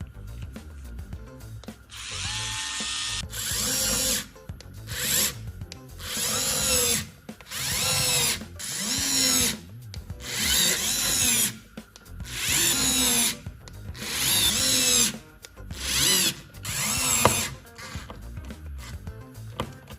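A power drill whirring in about ten short bursts, each speeding up and slowing down in pitch, with brief pauses between.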